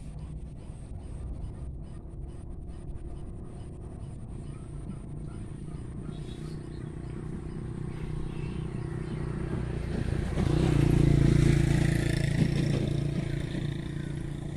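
A motor vehicle's engine running with a steady low hum, growing louder, loudest about eleven seconds in, then easing off toward the end.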